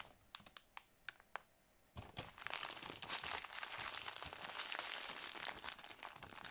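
Clear plastic packaging bags crinkling as they are handled. A few scattered crackles come first, then continuous rustling and crinkling from about two seconds in.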